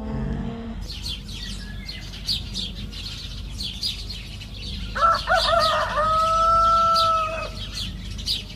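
Small birds chirping over and over, and about five seconds in a rooster crows once, a long call held for about two seconds: a sign of morning.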